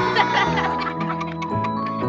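Upbeat children's background music with a bouncy, evenly pulsing bass line and held keyboard-like notes; a short laugh-like vocal sound comes near the start.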